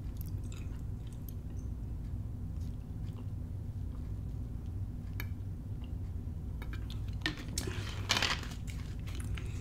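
Person drinking cola from a plastic bottle: faint sips, swallows and mouth clicks over a steady low hum, with a couple of louder gulps near the end.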